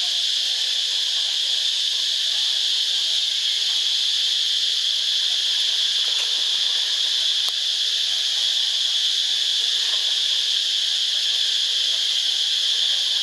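Insect chorus droning steadily at a high pitch, a shrill even hiss with no pulsing or breaks.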